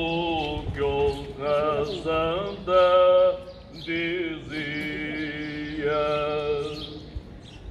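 Men's choir singing cante alentejano unaccompanied, in slow, drawn-out phrases with each note held about a second. The loudest phrase comes about three seconds in.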